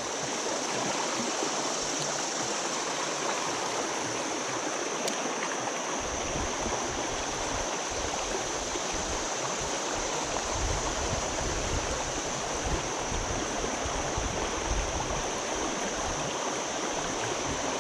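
Fast, shallow river water rushing over a riffle, a steady hiss. About six seconds in, an uneven low rumble starts coming and going beneath it.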